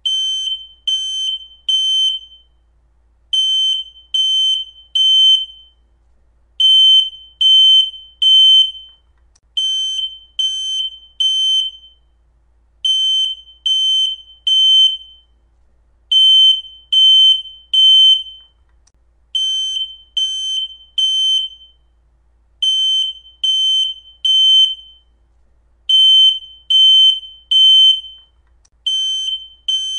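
Smoke alarm going off: a high, shrill beep sounded three times in quick succession, then a short pause, over and over. This is the temporal-three pattern a smoke alarm uses to signal that it has detected smoke, not the single low-battery chirp.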